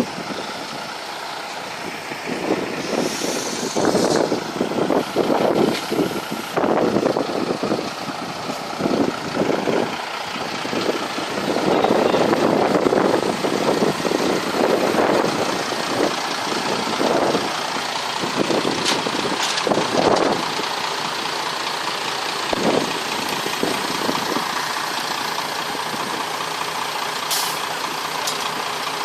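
Faulty boat engine running with irregular clattering knocks over the first twenty seconds or so, then running more evenly; the owner reckons the engine needs replacing.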